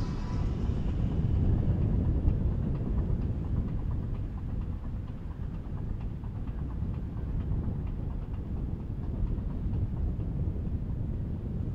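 Low, steady rumble of a large motor yacht's engines as it cruises past, with the churn of its wake.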